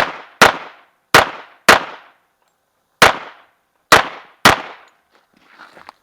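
A pistol fired in a rapid string: seven sharp shots, mostly in quick pairs about half a second apart, with a gap of over a second before the fifth shot. Each crack has a short echoing tail.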